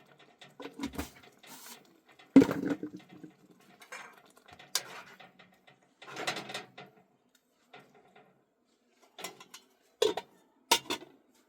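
Irregular knocks and clatters of things being handled, with quieter shuffling between; the loudest is a sharp knock about two and a half seconds in, with two more sharp knocks near the end.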